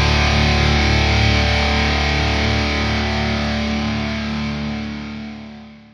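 Outro music: a distorted electric guitar chord left ringing, slowly fading out near the end.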